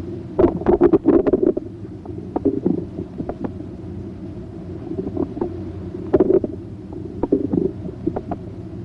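Bowel sounds heard through a stethoscope diaphragm over the right lower quadrant of the abdomen: irregular clicks and gurgles. They come in denser clusters near the start and again about six seconds in.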